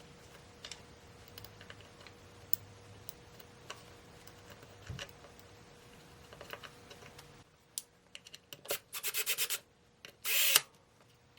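Hand tools and small metal hardware worked against a wooden recliner base while its pawl is refitted: scattered light clicks and knocks, then a quick run of rapid scraping strokes and a short, loud rasping rub near the end.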